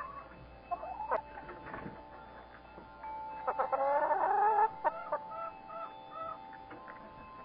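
Backyard hens clucking and calling, with a louder drawn-out squawk about halfway through and a string of short notes after it.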